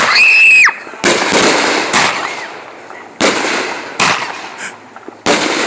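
Aerial fireworks firing a run of gold comet shots, one about every second. Each shot is a sharp launch bang that trails off into hiss and crackle. A whistling shot rises, holds and drops in pitch over about half a second at the start.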